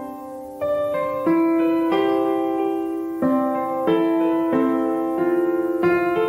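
Gentle instrumental background music on piano, a new note or chord sounding about every two-thirds of a second over held tones.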